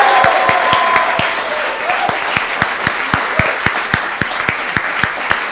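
Studio audience applauding a host's entrance, a dense run of claps with some loud single claps standing out, slowly dying down.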